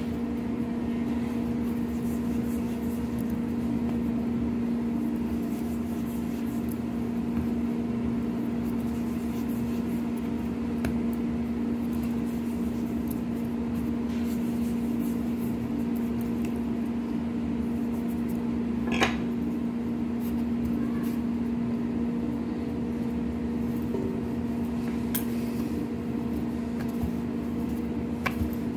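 A steady machine hum with one low, even tone, and a single sharp click about two-thirds of the way through.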